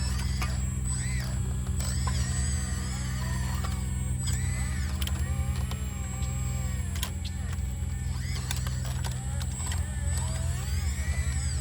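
Sumitomo SH120A3 excavator's diesel engine running steadily, with whines that rise and fall as the hydraulics are worked, and a few clicks.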